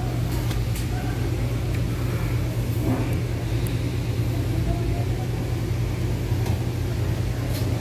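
A steady low machine hum, with a few faint light clicks over it.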